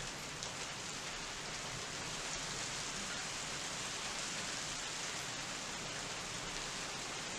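Steady rain falling in a thunderstorm: an even hiss with a few scattered drop ticks.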